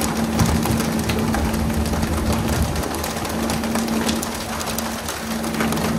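Pole-and-line tuna boat at work: a steady rushing hiss of water spray and splashing, over the boat's steady engine hum, with many short sharp slaps and knocks as tuna hit the deck.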